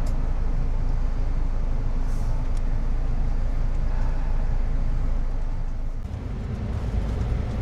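Steady low engine rumble heard from inside an expressway coach bus, with a change in the rumble about six seconds in.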